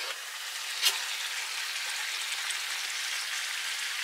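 Fish frying in a lidded stainless steel pan on a propane camp stove: a steady sizzle, with one sharp click about a second in.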